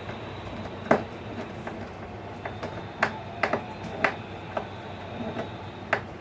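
Irregular light clicks and knocks, about ten of them, from handling wire and parts while rewiring an old loudspeaker, over steady background noise.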